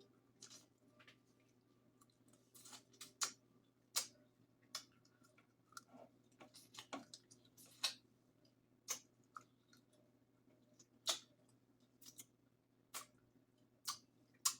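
Close-miked mukbang eating of seafood boil: quiet chewing broken by irregular sharp wet clicks and smacks, about a dozen at uneven intervals, some much louder than others.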